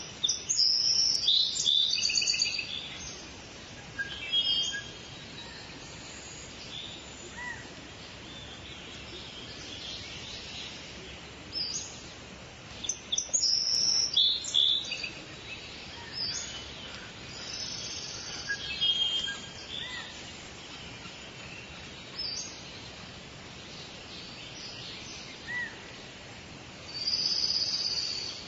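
Forest songbirds singing and chirping in short bursts, with the busiest phrases near the start, in the middle and near the end, over a steady background hiss.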